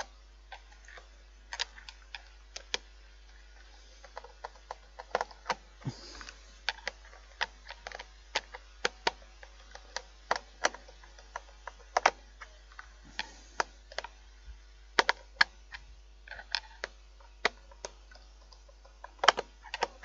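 Hand screwdriver driving screws into a plastic fan heater casing: irregular sharp clicks and light knocks of the driver and casing, a couple each second.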